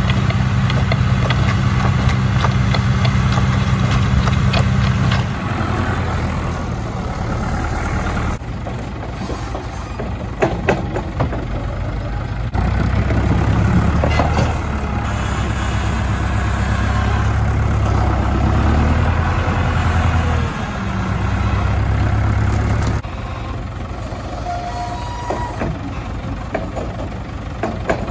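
John Deere tractor diesel engines running, one a 2040S pulling a muck spreader, another a front-loader tractor working a muck heap. The engine sound shifts abruptly several times, and a few sharp knocks come in the middle.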